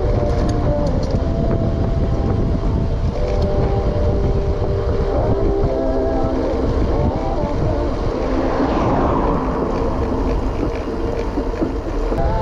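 Wind buffeting an action camera's microphone during a bicycle ride, with steady road rumble. Near the middle a louder rushing swell rises and fades.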